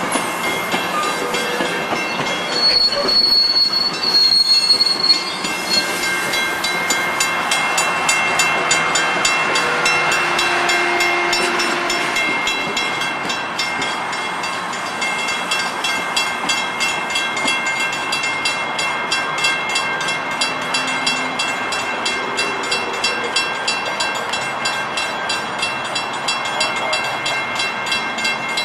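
Metrolink commuter trains running past on the rails with wheel noise throughout. A high wheel squeal is heard for a couple of seconds a few seconds in. A grade-crossing bell rings steadily in a quick, even beat over the train.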